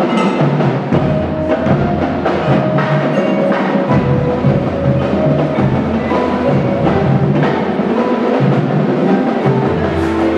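High school marching band playing its show live, wind instruments over busy percussion with drum and mallet strikes.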